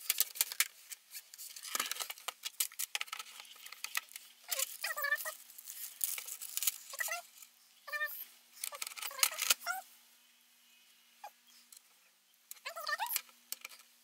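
Clicks and knocks of plastic monitor housing and stand parts being handled and fitted together, densest early on. From about five seconds in, a cat meows several times in short calls that bend up and down.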